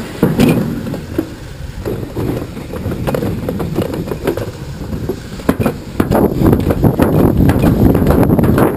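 Summer toboggan sled running fast down a metal trough track, a continuous rumble and rattle with sharp clacks, growing louder about six seconds in.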